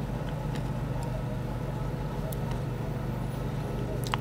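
Steady low background hum of a street, with a few faint clicks.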